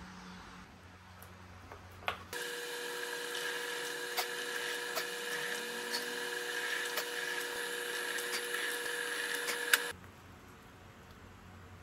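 Benchtop drill press running, its motor giving a steady whine with scattered small clicks as the twist bit drills into a wooden block clamped in the vise. It starts about two seconds in and stops suddenly a couple of seconds before the end.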